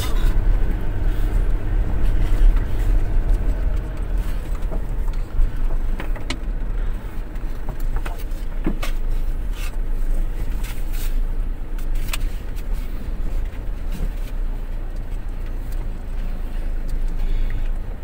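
Car with a load of palm fruit driving slowly up a ramp under light throttle, heard from inside: a steady low engine and road rumble with a few scattered knocks.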